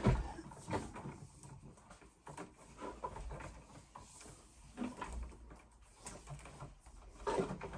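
Scattered knocks, clicks and rustles of hands-on handling work, with a sharper knock at the very start.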